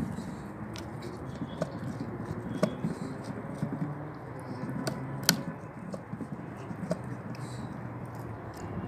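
Dog gnawing on an old, dry log: scattered cracks and clicks of teeth on wood, the sharpest about five seconds in.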